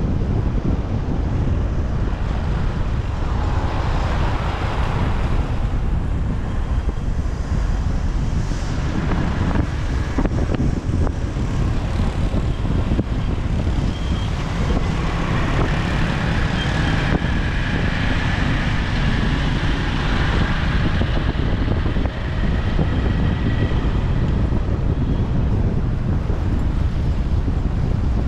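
Wind buffeting the microphone of a moving motorcycle, with road traffic noise underneath; passing vehicles swell and fade twice, a few seconds in and again around the middle.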